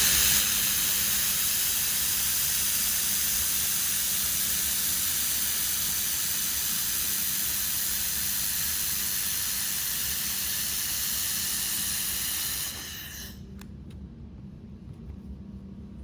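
Steady hiss of compressed air blowing from the nozzle of a handheld fiber laser welding torch as shielding gas while a weld is made, cutting off about thirteen seconds in. A low steady hum runs underneath.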